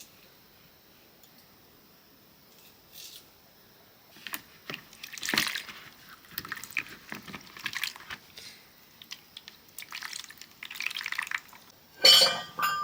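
Water splashing and sloshing in short irregular bursts, with a sharp clatter about a second before the end.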